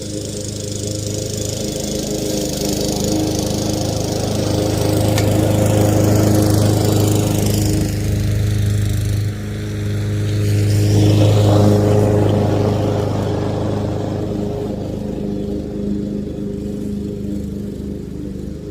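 Lawn mower engine running steadily, getting louder toward the middle and easing off again near the end.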